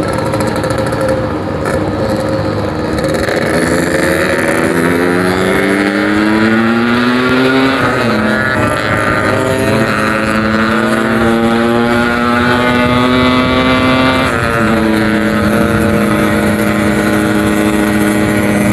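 Yamaha RX-King's 135 cc two-stroke single-cylinder engine with a packing power exhaust, pulling under way: its pitch climbs, drops at a gear change about eight seconds in, climbs again, then drops at another shift about fourteen seconds in and holds steady.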